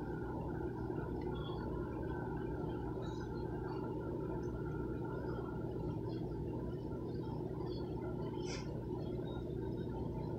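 Aquarium air pump and filter running: a steady low hum with bubbling, gurgling water, scattered small pops, and one brief crackle about eight and a half seconds in.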